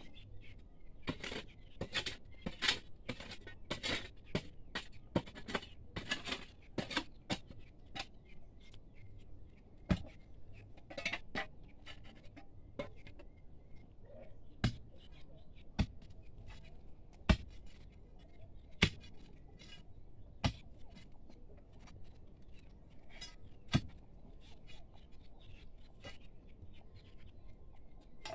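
Metal digging tool scraping and striking stony soil while a pit is dug: quick scraping strokes at first, then sparser sharp knocks a second or two apart, as the tool hits stones.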